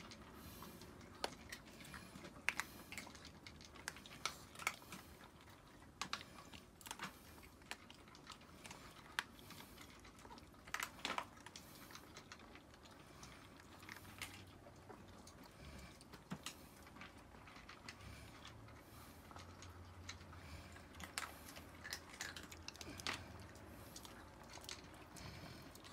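Faint, scattered clicks and crunches from Chihuahuas shifting about in a wire crate, with a bowl of kibble close by.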